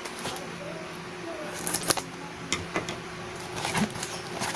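Packaging being handled and opened by hand: rustling and crinkling, with a few sharp crackles about two seconds in and again near the end.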